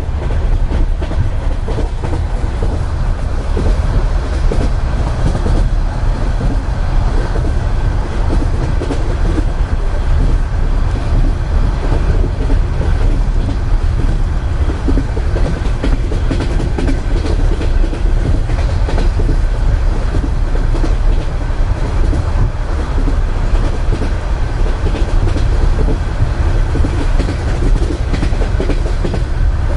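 Russian Railways passenger carriage in motion, heard from inside a compartment: a steady heavy rumble of the wheels on the track with a constant fine clatter of wheels over the rails.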